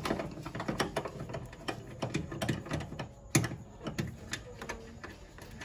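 Socket ratchet clicking in quick runs of ticks as a 10 mm bolt is undone, with a louder knock about three and a half seconds in.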